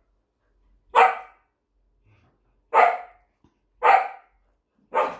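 Samoyed barking four times, about a second apart, at a treat lying on the floor in front of her.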